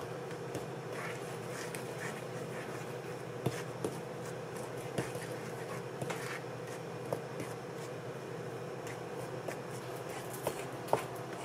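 Wooden fork stirring dry flour in a mixing bowl: soft scraping with scattered light taps against the bowl, over a steady background hum.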